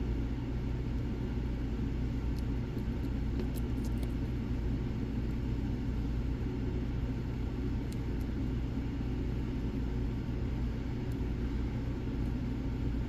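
Steady low rumble in the background, with a few faint, sharp ticks of a pick lifting the pins inside a Mul-T-Lock padlock.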